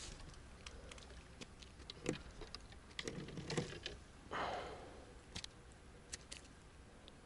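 Scattered light clicks and taps at irregular intervals, with a brief soft rustle about four and a half seconds in.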